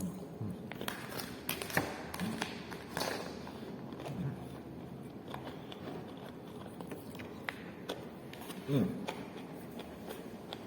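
Eating sounds: scattered light clicks and taps of a utensil against a dish, with chewing, and one louder brief low sound near the end.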